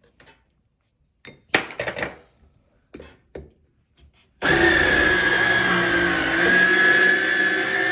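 A few short knocks, then about halfway through the small electric motor of a Yonanas 902 fruit soft-serve maker switches on and runs steadily with a high whine, as frozen fruit is pressed through its spinning blade.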